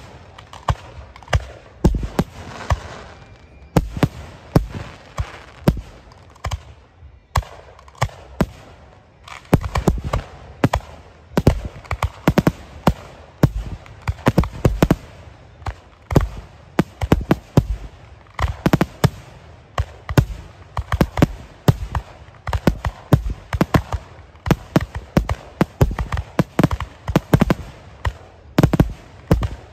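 Aerial fireworks shells bursting in rapid succession, a dense barrage of booms and sharp bangs, easing briefly about seven seconds in before picking up again.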